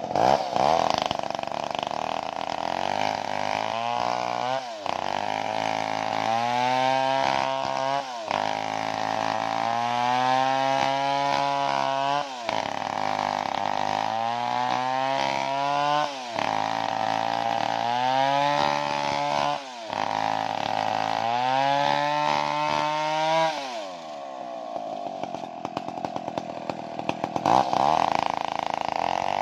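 Two-stroke chainsaw cutting through a thick log, its engine pitch sagging under load and picking up again every few seconds, over and over. Near the end it runs unloaded at a steadier high speed.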